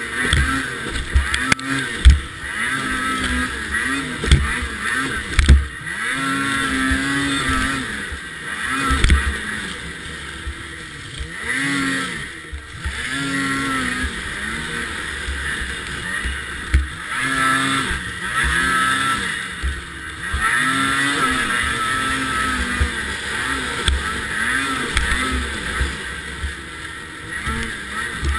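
Racing snowmobile engine revving up and falling back over and over as the sled accelerates and slows through the course, with repeated low thumps.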